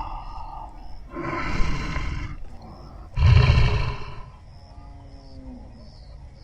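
A big cat roaring twice, each roar lasting about a second, the second louder; then crickets chirping faintly in the background.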